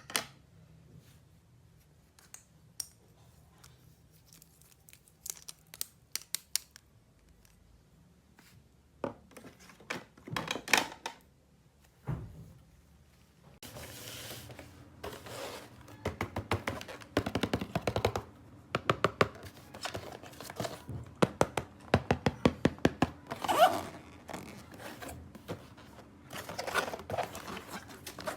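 Hands unpacking and handling plastic toys and their packaging: scattered clicks and taps, a burst of rustling about halfway through, then runs of rapid clicking in the second half.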